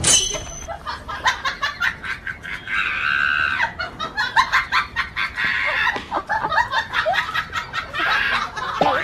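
Animal calls: a rapid run of short, sharp notes, with a longer, higher cry about three seconds in.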